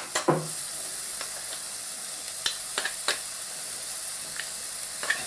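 Finely chopped onions sizzling steadily in olive oil in a frying pan as they sweat down, with a few light clicks scattered through it.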